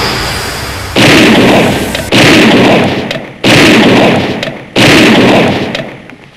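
Four loud, sudden booms about a second or so apart, each dying away slowly, before the sound cuts off abruptly near the end.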